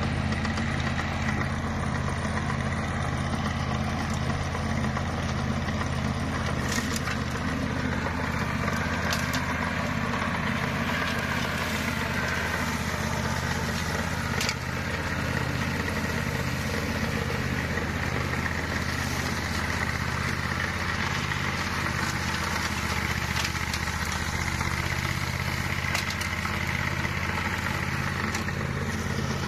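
Flail mower's engine running steadily while the machine cuts grass, with a few sharp clicks scattered through.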